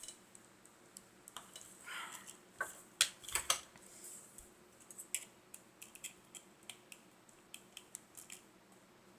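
Irregular light clicks and ticks of small plastic and metal phone parts being handled and pried apart by hand, with a few louder snaps about three seconds in.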